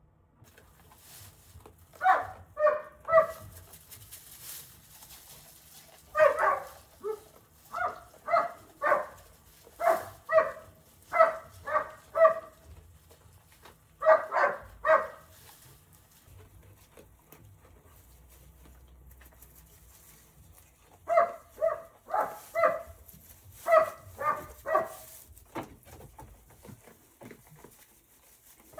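A dog barking in several runs of short barks, about two or three a second, with pauses of a few seconds between the runs.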